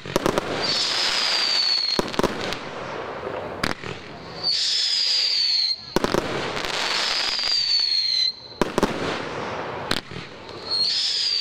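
Fireworks firing shot after shot: each rises with a high whistle that falls slightly in pitch over about a second and a half, over a rushing hiss, and sharp bangs follow as the shells burst. Four whistles in a row.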